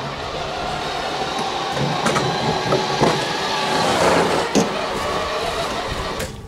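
Electric gear motor of a homemade battery-powered self-propelled wheelbarrow, driving through planetary gearboxes, running with a steady mechanical whine while it pushes a snow plough blade. A few knocks rattle through it, and the sound drops away at the very end.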